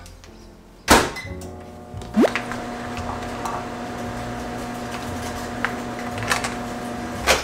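Microwave oven: a thump about a second in, then it starts up with a short rising whine and runs with a steady hum, a sharp knock near the end.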